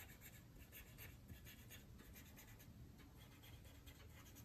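Faint scratching of a black washable marker on thick drawing paper, in many short, quick strokes.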